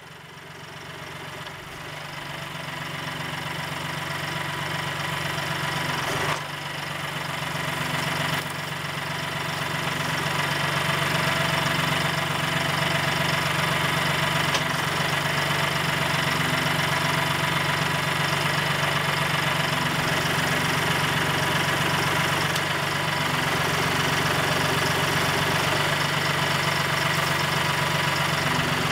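Massey Ferguson farm tractor's diesel engine running steadily at low revs, fading in over the first several seconds. Part of its note comes and goes several times as the hydraulics swing the arm grapple.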